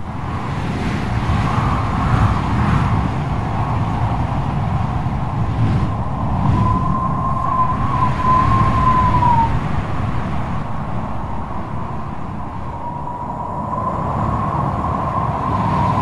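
Strong wind blowing, a steady low roar with a thin wavering whistle that comes in about six seconds in for a few seconds and returns near the end.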